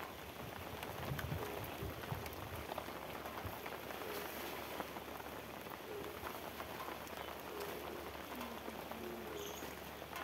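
Rain falling on open paved ground: a steady, even hiss of drops.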